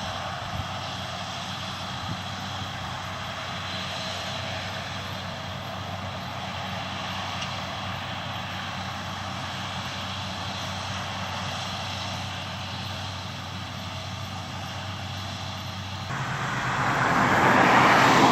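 Claas Lexion combine harvester running steadily while harvesting. A rushing machine noise builds and grows clearly louder over the last two seconds as the combine comes closer.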